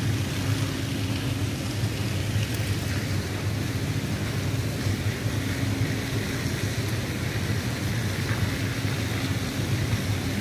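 Steady low hum of a ship's running machinery, with a constant hiss over it.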